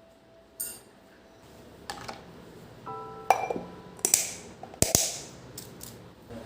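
Dishes and utensils clinking and knocking, with several sharp clinks, the loudest a little past the middle, over soft background music.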